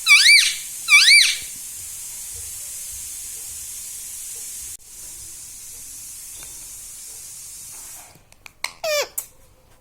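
Ring-necked parrot giving two loud, wavering squawks at the start and a quick burst of shorter calls near the end, with a steady hiss in between.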